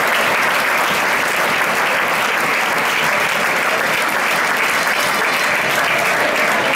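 Large indoor arena crowd applauding steadily after a point is won.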